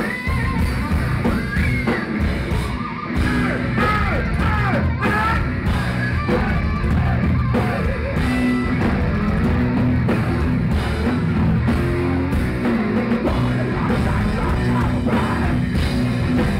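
Heavy metal band playing live: distorted electric guitar and drums, with shouted and sung vocals over them.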